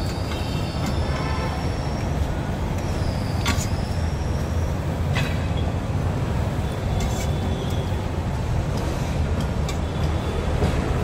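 Steady low rumble of road traffic, with a thin high whine in the first few seconds and a few faint clicks of a steel ladle against the pots.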